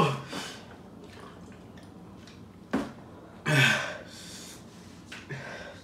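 Eating noodles with chopsticks: slurping and mouth sounds, with a sharp click a little before the middle. After the click comes a short, loud, breathy vocal sound, and a smaller one near the end.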